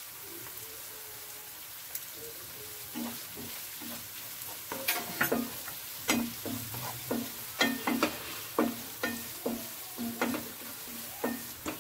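Chopped onions and green chillies sizzling in oil in a frying pan, with red chilli powder just added to fry. From about three seconds in, a wooden spatula stirs and scrapes through the pan in quick strokes, about three a second.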